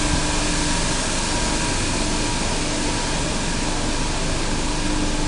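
Steady mechanical hum and hiss with faint steady tones, like machinery or ventilation.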